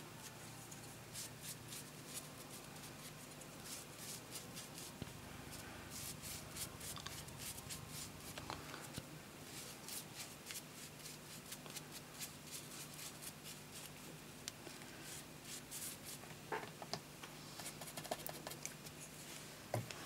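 Faint rustling and light taps and clicks of hands handling small craft materials on a table, scattered through the stretch, over a steady low hum.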